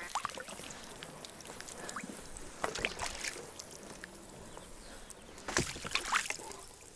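Light water splashing and sloshing at an inflatable boat's side, with scattered small knocks and rustles, as a live decoy duck is handled in the water among reeds. The loudest splashes come near the middle and again about two-thirds of the way in.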